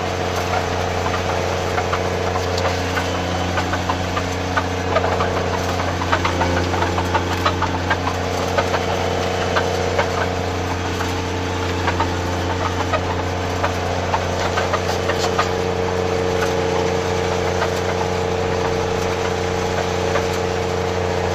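Snowcat engine running steadily under way, heard from inside the cab, a low steady drone with frequent clicks and rattles over it.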